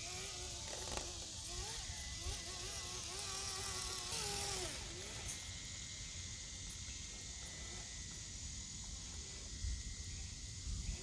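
Traxxas TRX4M RC crawler's small electric motor and drivetrain whining, the pitch wavering up and down with the throttle, for about five seconds before it stops. A faint steady high tone continues after that.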